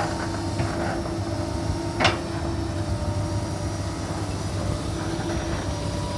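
Komatsu PC200 hydraulic excavator's diesel engine running steadily, with one short sharp knock about two seconds in.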